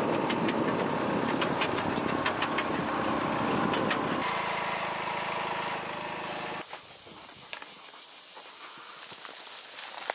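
Kubota utility vehicle's engine running as it drives through a soybean field, with a rush of plants brushing and crackling against it. The engine note steadies about four seconds in. Shortly before seven seconds the engine cuts away abruptly, leaving a steady high-pitched insect drone.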